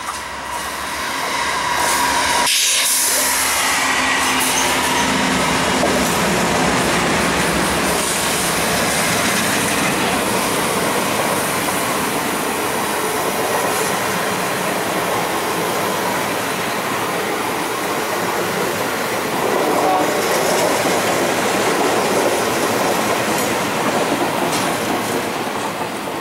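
Amtrak P42DC diesel-electric locomotives passing at speed, followed by a string of passenger cars rolling by with steady wheel-on-rail noise. The sound builds in the first couple of seconds and fades as the last car goes by near the end.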